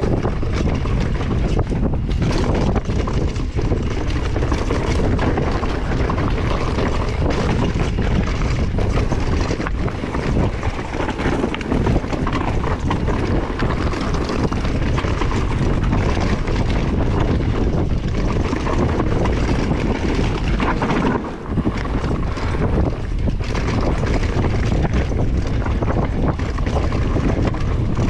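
Wind buffeting the camera microphone and the tyres of a Vitus Sommet mountain bike rolling fast over dirt singletrack, with many short knocks and rattles as the bike hits roots and bumps.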